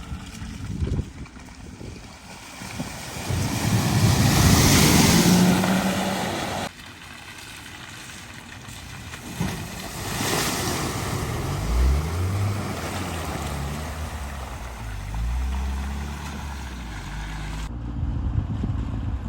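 Cars driving through deep ford water: a loud rush of splashing water that builds and cuts off sharply, another splash, then a car engine running and revving with rising pitch.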